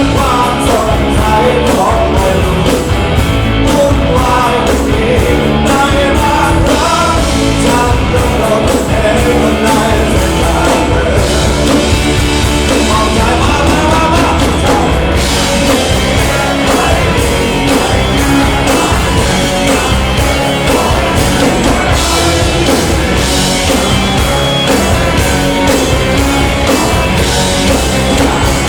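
Loud rock song with a singer over a full band, played continuously.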